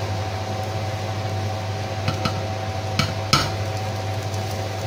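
Omelette frying in oil in a nonstick pan over a steady fan-like hum. Four sharp clicks and knocks come between about two and three and a half seconds in, as the pan is tipped against a plate to slide the omelette off.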